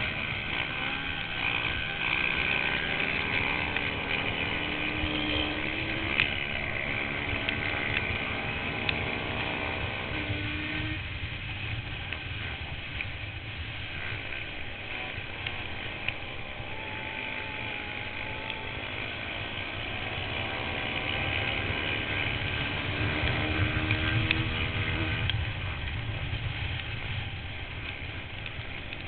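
Yamaha Banshee quad's two-stroke twin-cylinder engine running at race speed, its pitch rising and falling repeatedly as it goes on and off the throttle.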